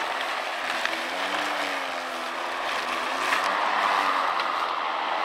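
Ryobi cordless electric lawn mower running with its bag fitted, cutting tall grass: a steady whirring hiss from the blade, with a motor hum that wavers in pitch between about one and three seconds in as the load on the blade changes.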